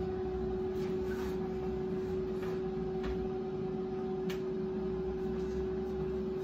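Air fryer running as it preheats: a steady electric hum from its fan and heater, with a couple of faint clicks about three and four seconds in.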